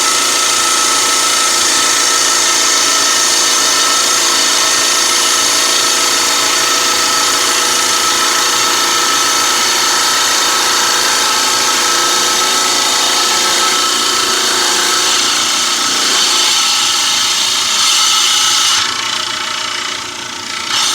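Lapidary trim saw running steadily while its blade cuts through a piece of condor agate, a hard stone, with a steady high whine over a gritty hiss. The sound thins out near the end as the cut finishes.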